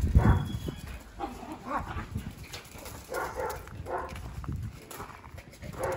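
A dog making short grunting sounds several times while moving about on a gravel path, over uneven footsteps on the gravel.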